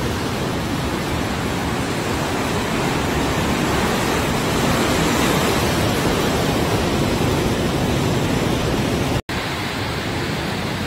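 Steady rushing noise of sea surf and wind at the microphone, with no other distinct sound; it cuts out for an instant about nine seconds in.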